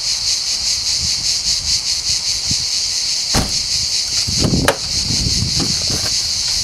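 A car door being unlatched with a click and swung wide open, the loudest knock about two-thirds of the way through, followed by a few lighter knocks and steps. Insects buzz steadily and high-pitched throughout.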